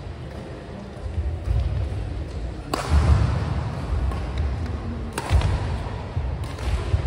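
Badminton rally: rackets striking the shuttlecock in three sharp cracks a couple of seconds apart, each ringing briefly in the hall, over heavy thudding of the players' feet on the court.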